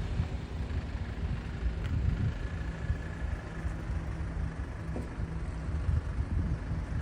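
Car driven slowly over a freshly patched asphalt pothole, its engine running with a steady low hum and rumble.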